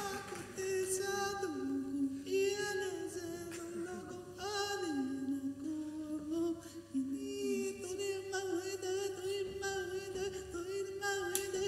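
A cappella group singing without instruments: held vocal notes that slide up and down in pitch over a steady sustained tone.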